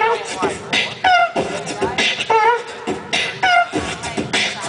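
Beatboxing into a handheld microphone over a PA: quick drum-like kicks and snares made with the mouth, with a short pitched vocal glide about once a second in a repeating pattern.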